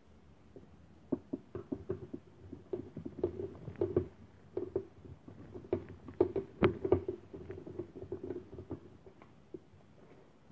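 A small screwdriver and an aluminium heatsink block being handled: irregular light clicks and taps of metal on metal and against the tabletop, busiest and loudest in the middle.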